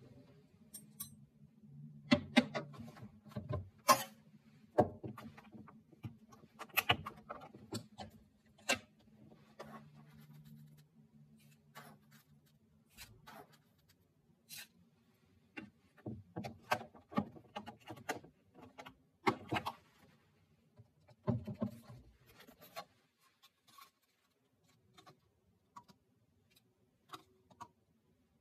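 Kitchen handling sounds: a metal spoon and plastic food containers clicking and knocking on a stone countertop as oats and yogurt are spooned into a plastic tub, in scattered sharp knocks. A low steady hum runs underneath until about a third of the way in.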